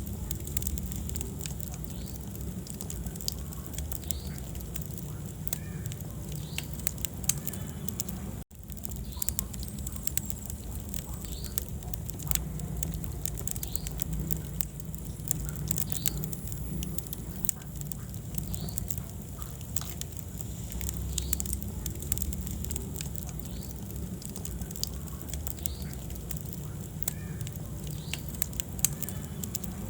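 Wood fire burning in a fireplace: irregular crackles and pops over a low, steady rumble of flames. The sound drops out for an instant about eight seconds in.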